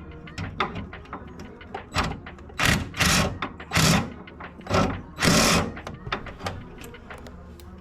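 Tools at work on car suspension parts: a run of clicks and knocks on metal, with four short, loud noisy bursts near the middle.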